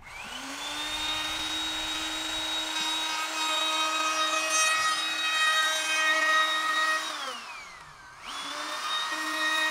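Bauker electric wood router starting up and running at full speed while cutting along a plywood edge. About seven seconds in it is switched off and its whine falls as it spins down, then it starts again about a second later.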